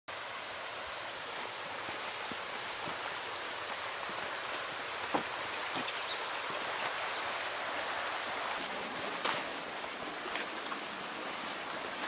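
Steady rush of a stream's running water. Two sharp clicks, about five and nine seconds in.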